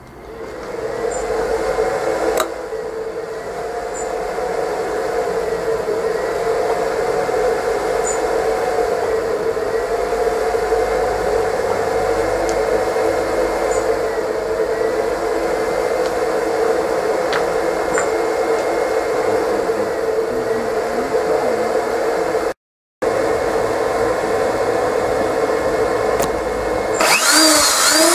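Power inverter's cooling fan spinning up and running steadily with an electrical hum while a kettle is plugged into it; the kettle's light is not on, so it is not heating. The sound drops out for a moment about three quarters through, and near the end a corded electric drill starts, louder, with its pitch climbing.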